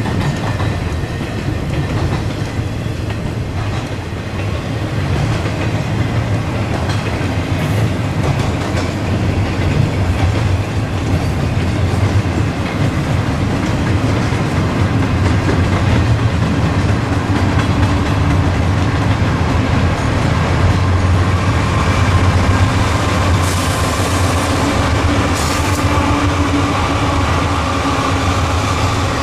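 Freight train cars rolling past with wheels clattering over the rails. From about halfway in, the lead GE diesel locomotives of a second freight train pass with their engines running, adding a steady drone. Their tank cars follow.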